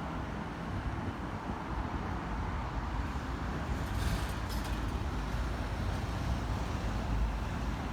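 Road traffic going by: a steady rumble of passing vehicles, with a brief higher hiss about four seconds in.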